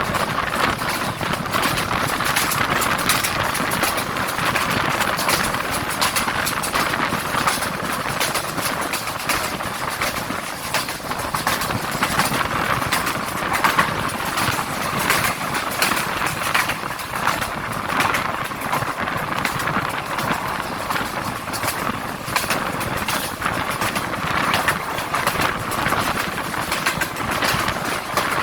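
A passenger train running: a steady rush of noise with constant fast rattling and clatter.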